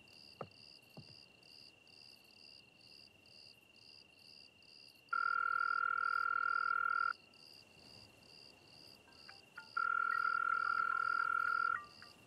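Telephone ringback tone heard through a phone held to the ear: two long, steady electronic rings, each about two seconds, the outgoing call not yet answered. Crickets chirp steadily, about three chirps a second.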